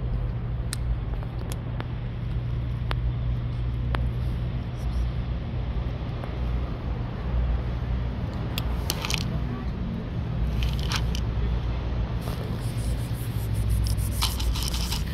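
A cat crunching dry kibble, sharp crunches and clicks that come scattered at first and in denser clusters later on, over a steady low rumble.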